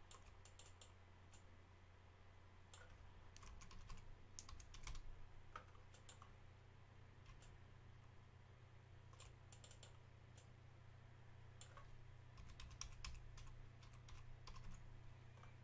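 Faint computer keyboard typing in short bursts of clicks, over a low steady hum.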